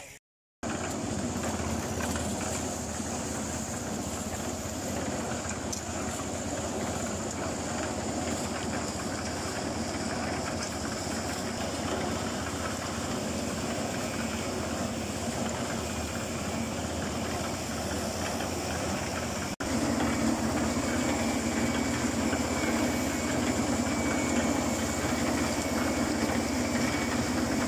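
Portable drum concrete mixer running: a steady engine drone that starts abruptly about half a second in and is louder and closer for the last several seconds.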